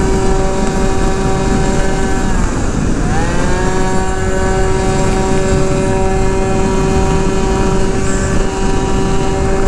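72cc Polini-kitted Honda Dio two-stroke scooter engine at full throttle through a prototype S23 expansion-chamber pipe, holding a steady high-rpm note as the variator keeps it up in the revs. About two and a half seconds in, the revs sag briefly and climb straight back to the same pitch. Wind noise rushes underneath.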